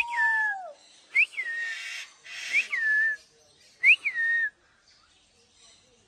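A person whistling four short calls about 1.3 seconds apart, each swooping up sharply and then dropping to a held lower note.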